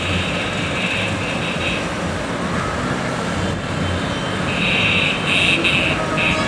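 Engines of a long column of Vespa scooters running together at low speed, a steady dense drone. A louder high-pitched buzzing sound comes in about two-thirds of the way through.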